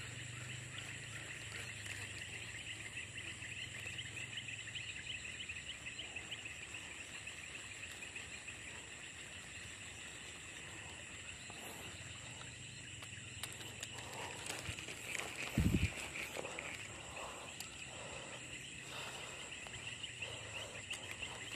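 Steady chorus of calling insects and frogs, a continuous high trilling, with one dull thump about two-thirds of the way through and faint rustling of dry grass after it.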